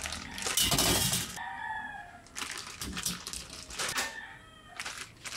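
Plastic packets of frozen squid balls and kikiam rustling as they are handled and emptied, the pieces tumbling into the air fryer basket in a burst near the start and in smaller rattles later. A few short pitched calls sound in the background.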